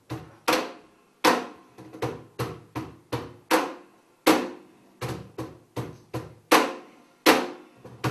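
Acoustic guitar played in sharp, percussive strummed chord strokes, each ringing briefly and dying away, in an uneven syncopated rhythm of about two to three strokes a second, some strokes much louder than others.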